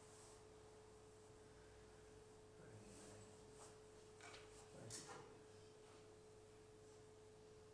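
Near silence: room tone with a faint steady pure hum and a few faint shuffles and taps about three to five seconds in.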